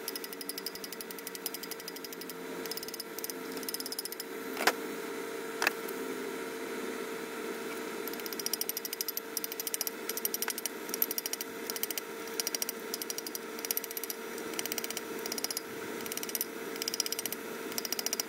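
Hammer tapping a deep socket to drive core plugs into a Duramax LLY cylinder head: a few separate sharp taps in the first half, then quick runs of light taps. A steady hum sits underneath.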